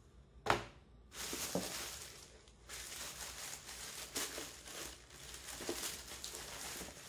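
Tissue paper crinkling and rustling as hands rummage through it, in long stretches of crackly noise, after a single sharp knock about half a second in.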